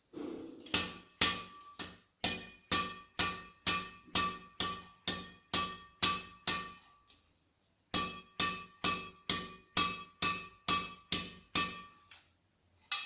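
Badminton racket strung with Li-Ning No. 1 strings at 28 lbs, struck over and over about twice a second. Each strike gives a sharp ping with a brief ring, fairly crisp and ringing. There is a short pause about seven seconds in before the strikes resume.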